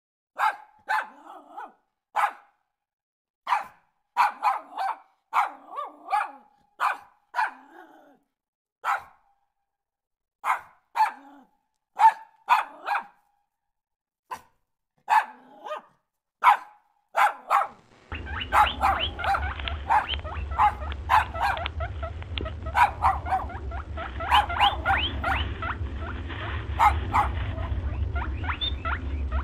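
A blue merle sheepdog barking: repeated short, sharp barks, singly and in quick pairs, with silence between them. About two-thirds of the way through, the barking stops and a steady low hum with fast, dense scratchy clicking takes over.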